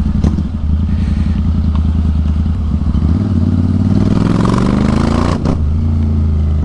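Royal Enfield Interceptor 650 parallel-twin, bored out to 865 cc and breathing through an Atom full-system exhaust, heard from the saddle while riding. Its note is steady at first, rises in pitch as it accelerates from about three seconds in, breaks off briefly about five seconds in, then runs on steadily.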